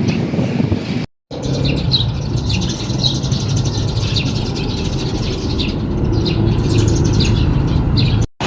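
Small birds chirping over a steady low rumble of vehicle noise. The sound drops out completely twice for a moment, about a second in and near the end.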